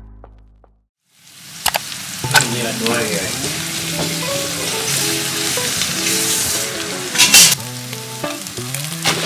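Background music fades out, then after a moment of quiet, shallots and spring onions sizzle in hot oil in a stone-coated frying pan, stirred with a plastic spatula that clicks and scrapes on the pan. The sizzle surges briefly louder about seven seconds in.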